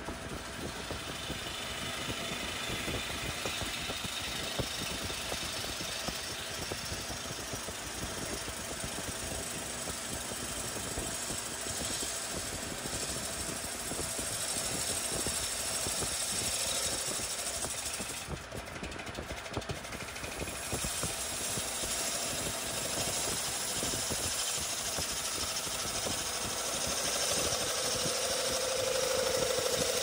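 Wood lathe spinning a maple bowl blank while a bowl gouge cuts into it: a steady rushing hiss of the cut over a fast, rough rattle. The cutting hiss drops away for a couple of seconds past the middle, and a humming tone joins near the end.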